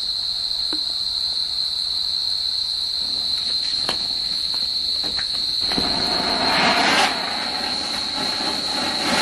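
Cock Brand 45 cm chakri ground spinner firework lit on the ground: a few sharp fizzing cracks from the burning fuse, then about six seconds in it catches and gives a loud, steady hissing spray of sparks. Crickets chirp steadily throughout.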